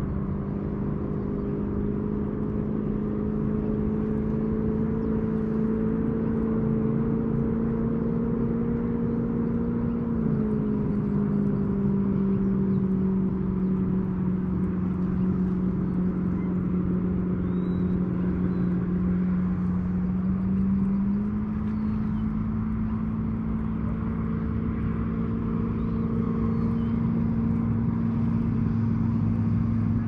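An engine running steadily at a constant speed, a single even hum whose pitch drops a little about a third of the way in and rises back up about two-thirds of the way in.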